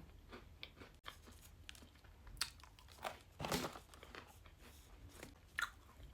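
A few faint, scattered crunches and crinkles: chocolate butter biscuits being chewed and their packet handled.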